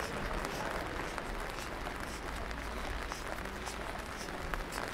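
Steady rain falling, a dense even hiss with scattered faint drop ticks.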